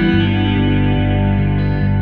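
Background music led by a guitar with an effects-laden sound, its notes held and changing about every half second.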